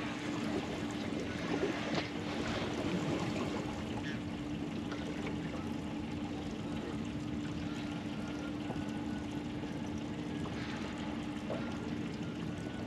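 Small boat sitting with a steady low hum, likely its engine idling, while water laps and trickles along the hull.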